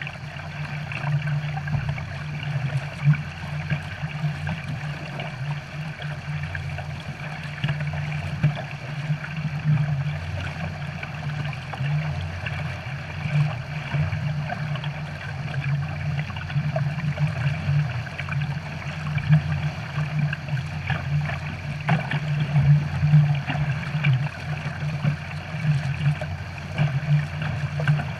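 Personal watercraft engine running steadily, with water rushing and splashing around the hulls.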